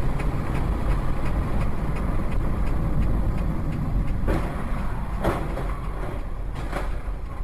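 Steady rumble of road and engine noise inside a moving car, with a couple of light knocks about four and five seconds in.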